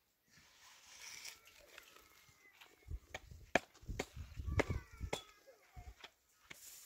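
A quick run of sharp knocks and heavy thuds, roughly eight to ten strikes, starting about three seconds in and lasting around three seconds.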